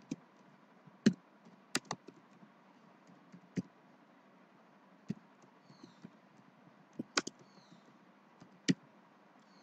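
Typing on a computer keyboard: scattered, uneven key clicks, about nine in all, over a faint steady hiss.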